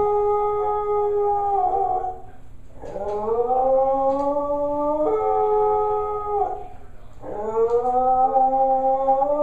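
A dog howling in long, drawn-out howls: one carries on from before and breaks off about two seconds in, then two more follow, each starting low and sliding upward, with short pauses between them. The owner takes the howling as a sign that he is sad.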